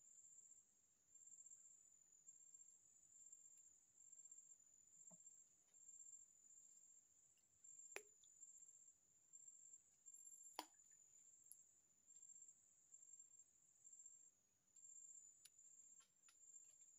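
Faint high-pitched insect trill, pulsing on and off about once a second, with two sharp clicks about eight and ten and a half seconds in.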